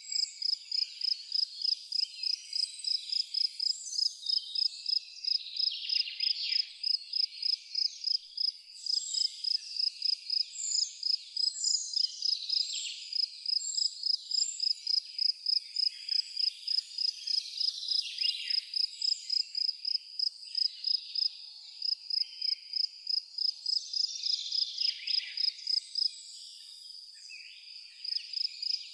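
A cricket chirping in a steady, even rhythm, about three high chirps a second, pausing briefly near the end, while birds call and twitter in short high notes around it.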